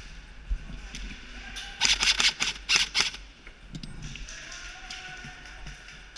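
Airsoft gun firing a rapid string of about ten sharp cracking shots in just over a second, starting about two seconds in.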